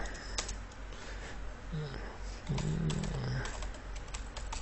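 Computer keyboard keys clicking in scattered keystrokes as a terminal command is entered and a password typed. A short low hum a little past the middle is the loudest sound.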